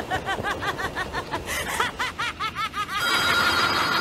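A rapid, high-pitched cartoon laugh, a quick run of 'ha-ha-ha' syllables. About three seconds in it gives way to a steady electronic buzz.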